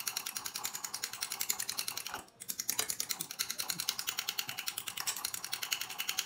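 A metal fork beating egg whites in a bowl: rapid, even clicking of the tines against the bowl, about nine strokes a second, with a brief pause a little over two seconds in.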